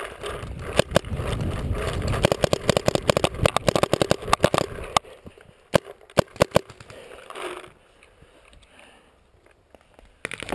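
A paintball player running in gear: quick footfalls and the rattle of equipment and paintballs in the marker's loader, with wind rumbling on the helmet camera. The running stops about five seconds in, leaving a few scattered sharp clicks and a brief rustle.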